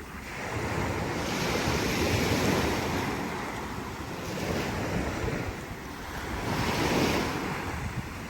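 Wind rushing across the microphone in gusts, swelling and easing every couple of seconds.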